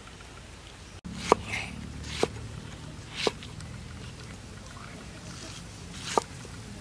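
Cleaver chopping pineapple on a wooden chopping block: four sharp knocks with a brief metallic ring, the first the loudest, over a steady low hum.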